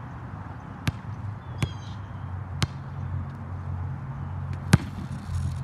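Basketball bouncing on an outdoor hard court: three single bounces spaced about a second apart, then one harder, louder bounce near the end as the ball is thrown down for the trick shot. A low steady hum runs underneath.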